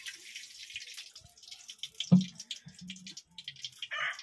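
Cooking oil poured in a thin stream from a plastic jug into a blackened kadai on a wood-fired mud stove, a hissing, crackling pour for about two seconds. One sharp knock follows, and a rooster starts crowing near the end.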